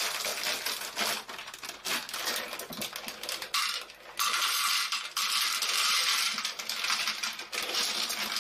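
Dry fusilli pasta being poured from a plastic bag into an empty metal saucepan, the hard pieces rattling and clattering against the metal. There is a brief let-up about four seconds in.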